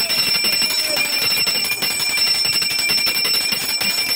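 Temple bells ringing continuously, a fast unbroken clanging with steady metallic ringing tones.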